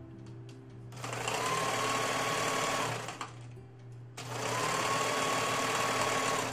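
Electric sewing machine stitching in two runs of about two seconds each. Its motor whine rises at the start of each run, then holds steady.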